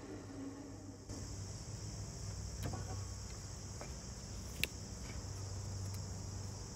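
Steady high-pitched chirring of insects, coming in about a second in, over a low steady hum. A few light knocks and a sharp tick about halfway through come from the cut plywood pieces being handled.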